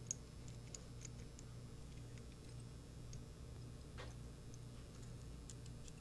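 Faint, scattered small metal clicks and ticks of a Baldwin roller latch's parts being handled and fitted back together, one slightly sharper click about four seconds in, over a low steady hum.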